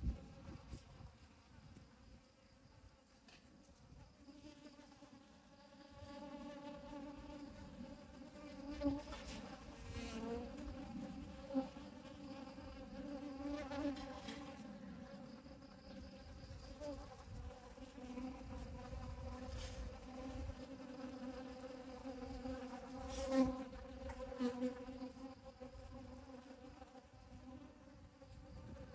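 Honeybees buzzing as they forage in a flower, a low wingbeat hum that swells and fades as individual bees fly close by.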